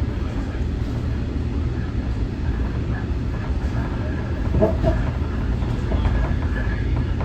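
Nippon Sharyo diesel multiple unit train under way, heard from on board: a steady low rumble from the train's running gear and engine, with a brief higher-pitched sound about four and a half seconds in.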